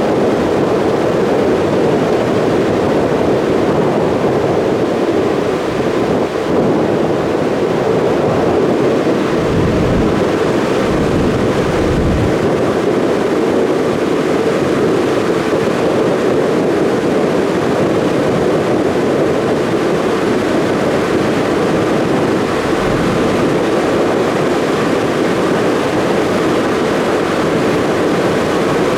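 Steady loud rumble of a passenger ferry under way, its engine noise mixed with rushing water and wind, with a couple of soft low thuds about ten and twelve seconds in.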